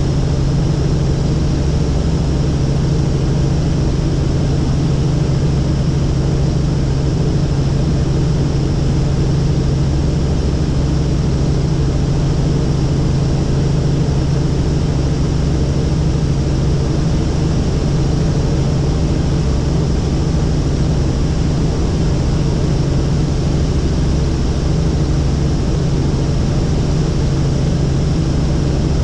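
Helicopter in flight heard from inside the cabin: a steady low drone of engine and rotor with an even hiss over it, unchanging in level throughout.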